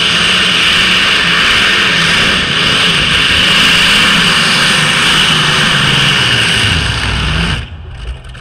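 Multi-engine modified pulling tractor running at full power as it drags the weight sled, a loud steady roar. About seven seconds in its engine note drops in pitch, and the sound then cuts off suddenly.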